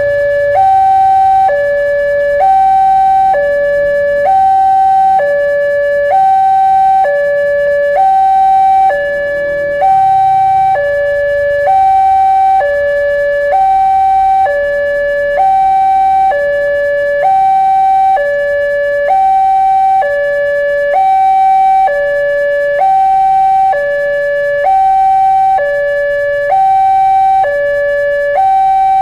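Railroad level-crossing warning alarm sounding as the crossing closes for an approaching train. It is an electronic two-tone signal that alternates steadily between a lower and a higher tone, each held about half a second.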